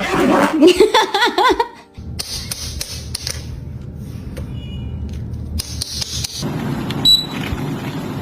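Parrot vocalising in a warbling, wavering voice for about the first two seconds, then a steady noisy background with scattered clicks and a short high beep near the end.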